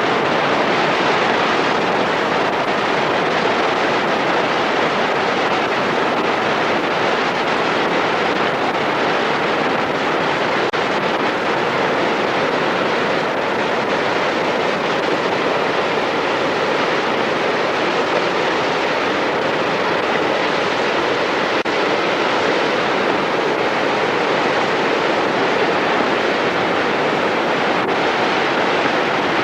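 Mena Creek in flood: fast-running floodwater making a loud, steady rushing noise with no let-up.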